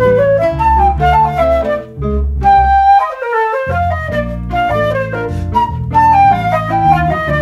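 Afro-Cuban jazz trio playing: a concert flute carries a quick mambo melody over an electric bass line and plucked nylon-string classical guitar. About three seconds in, the bass stops for well under a second and then comes back in.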